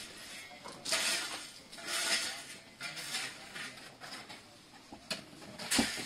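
Bricklaying with steel trowels: several short scrapes and metallic clinks as mortar is spread and tools strike brick and metal.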